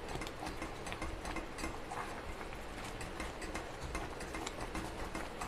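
Silicone spatula stirring a thick mixture of desiccated coconut, reduced milk and paneer in a steel pan: irregular small clicks and scrapes over a steady noisy hiss.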